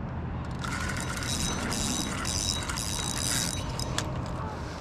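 Fishing reel's drag buzzing in several short spurts as a hooked carp pulls line off the reel, with a single click near the end.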